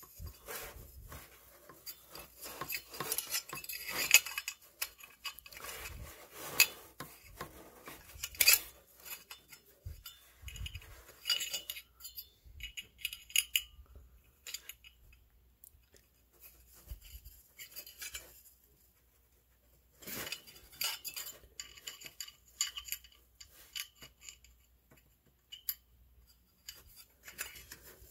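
Irregular small metallic clicks and scrapes of an Allen key turning the hub set screw on a furnace draft inducer's sheet-metal blower wheel as it is secured to the motor shaft, with light clinks from handling the wheel and motor housing. There are short pauses in between.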